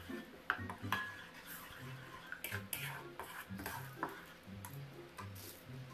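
A ladle stirring green curry paste into coconut milk in a non-stick wok, with scattered knocks and scrapes against the pan, the loudest about half a second to a second in.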